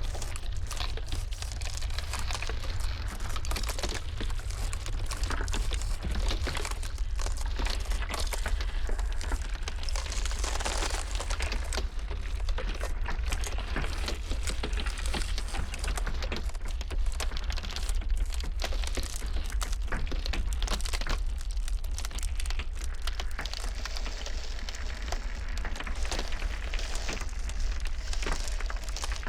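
Ice cracking and crackling in a dense, irregular run of sharp snaps and crinkles, over a steady low rumble.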